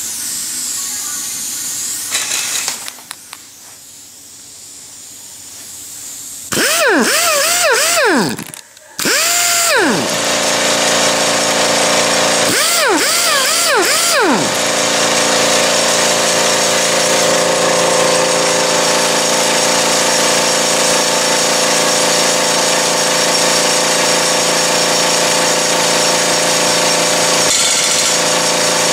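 Uryu UX-800 pneumatic nutsetter run in three short bursts, its air motor swooping down and up in pitch several times in each burst. This is followed by a long, steady, loud machine sound with fixed tones.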